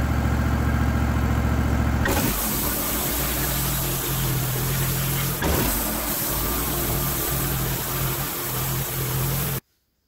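The gas engine of a Wood-Mizer LT15 Wide portable bandsaw mill running steadily while the band blade saws through a pine log. The sound changes abruptly about two seconds in and cuts off suddenly near the end.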